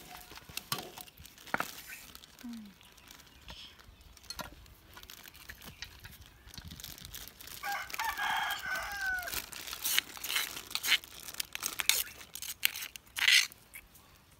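A rooster crows once, about eight seconds in, a call lasting under two seconds that falls off at the end. Around it come scattered clicks and scrapes of spoons in a stone mortar and a metal bowl as the salad is mixed.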